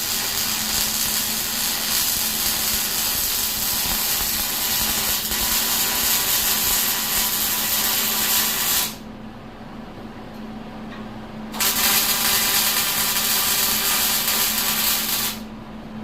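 Electric arc welding: a steady frying crackle as a bead is laid, stopping about nine seconds in. After a pause of about three seconds, a second weld of about four seconds starts.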